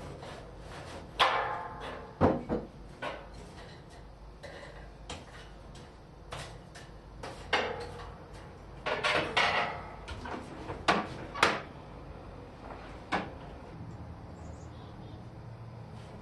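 Irregular knocks and short metallic clinks, a dozen or so with uneven gaps, some ringing briefly, from tools and gear being worked at a coal-fired bellows forge as the steel rod heats, over a steady low hum.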